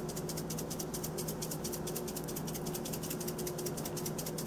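Shaker jar of dried thyme shaken quickly over a slow cooker, a fast, even rattle of dried leaves that keeps up without a break.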